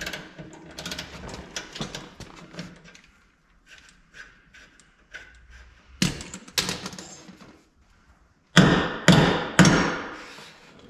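Metal tools working on a travel trailer's suspension bolt: light clicking and handling at first, two sharp knocks about six seconds in, then three loud metallic strikes about half a second apart near the end, as the bolt is worked loose to be knocked out.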